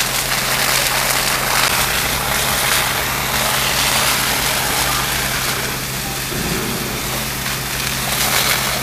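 Fire engine running steadily, a low hum under an even rushing noise from hose streams and the burning building.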